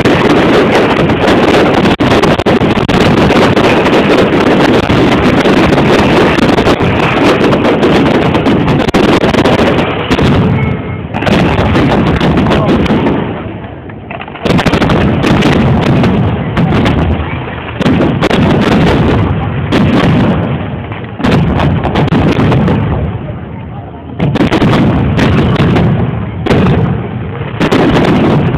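Fireworks display: a dense, continuous barrage of shell bursts for about the first ten seconds, then separate loud booms every second or two with short lulls between them.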